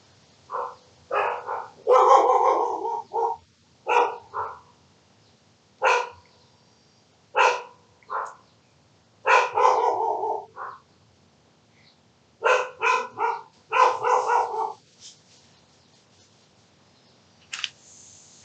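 A dog barking: loud, short barks in irregular groups of one to four, with quiet gaps between them.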